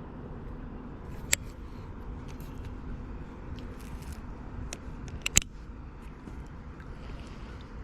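Scattered sharp clicks and knocks over a steady low rumble, with a loud click about a second in and a louder double knock past the middle.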